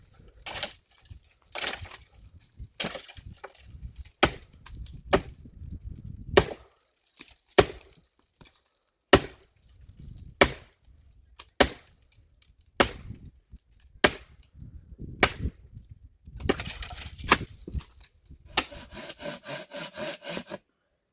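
Axe chopping firewood: sharp wooden strikes about once a second, wood splintering. Near the end comes a quick run of short, ringing strokes.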